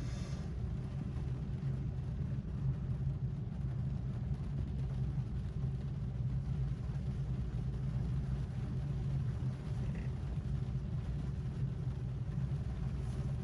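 Rain on a car's roof and windows heard from inside the cabin: a steady, even rumble, heaviest in the low end, with no single drops standing out.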